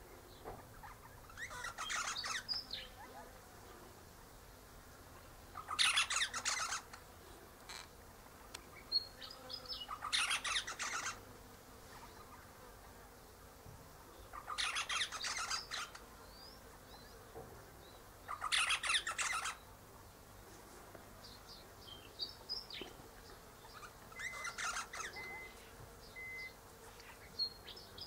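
Eastern rosella chattering: harsh bursts of rapid notes about a second long, repeating every four seconds or so, with a few thin high whistled notes between them. Near the end, a microwave oven beeps several times.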